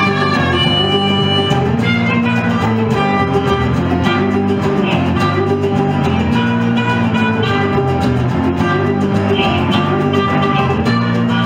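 A small blues band playing an instrumental passage: harmonica with wavering held notes over a resonator guitar and an electric guitar, with a low riff repeating about every two seconds.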